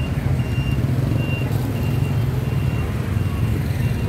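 Steady rumble of busy motorbike traffic. Over it, a short high electronic beep repeats evenly, about every two-thirds of a second.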